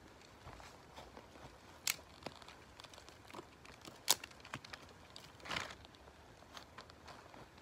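Scattered small snaps, crinkles and rustles of dry kindling and birch bark being handled to lay a campfire, with two sharper snaps about two and four seconds in and a longer scrape a little after five seconds.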